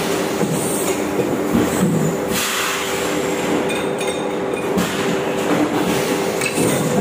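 Steady, loud running of the cap-moulding machinery in a workshop making 25-litre water-can caps: a continuous mechanical drone with a constant hum through it.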